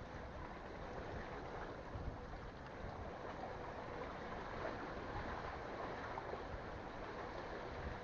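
Steady, even noise of sea water lapping and moving at sea, with a faint steady hum underneath.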